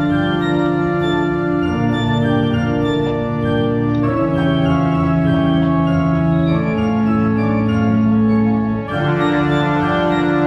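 Background music: a sustained organ-like keyboard playing slow held chords that change every second or two.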